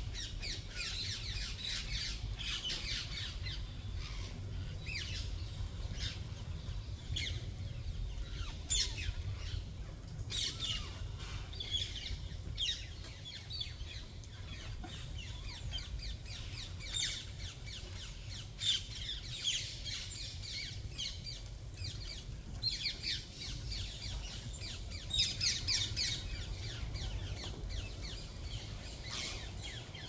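A flock of green parakeets squawking: many short, shrill, overlapping calls that come in busy bursts and lulls, over a low steady rumble.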